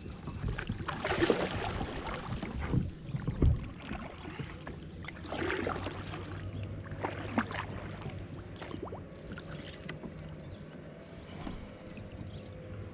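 Kayak paddling: a double-bladed paddle dipping and splashing in shallow water, several strokes in the first half, then it goes quieter as the paddle stops.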